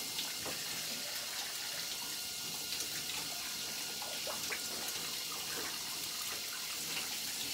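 Water spraying steadily from a shower head, an even hiss.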